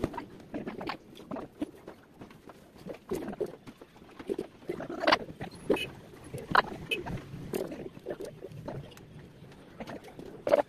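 Pen nib scratching across paper in short, irregular strokes as a design is drawn, with sharper clicks a few times, loudest around the middle.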